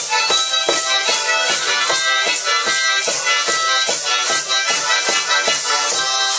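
Live music instrumental break: a harmonica playing sustained notes over a steady rhythmic beat, about three beats a second.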